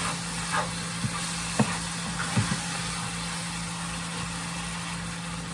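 Ground beef and onion frying in a skillet, a steady sizzle over a low hum, while a metal spoon stirs it and taps the pan a few times.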